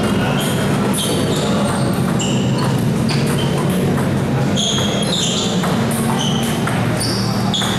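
Table tennis ball clicking off paddles and the table during a doubles rally, many quick sharp pings in irregular succession. A steady low hum runs underneath.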